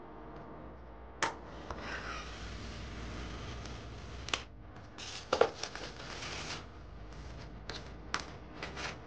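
Utility knife slitting the clear plastic film wrapped around a flat-packed pegboard, a long rustling hiss as the blade runs along the edge. The plastic then crinkles and crackles as it is peeled away, with the sharpest snaps about five seconds in and more crackles near the end.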